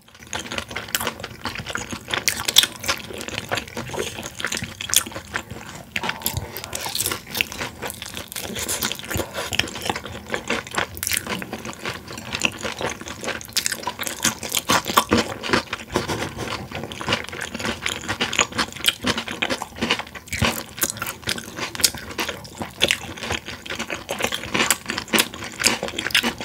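Close-miked chewing of soft boneless fried chicken by two people: a continuous run of small, sharp mouth clicks and smacks.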